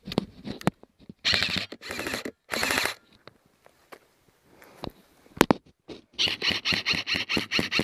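Airsoft gun firing: three short rapid-fire bursts about a second in, then, after a lull with a single sharp click, a steady string of quick shots at about five a second near the end.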